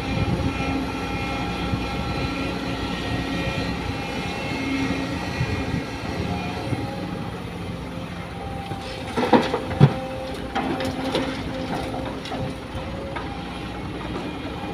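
Sumitomo hydraulic excavator working: its diesel engine and hydraulics running steadily with a constant whine as it digs soil and swings a loaded bucket over a dump truck. A few sharp knocks come about nine to ten seconds in.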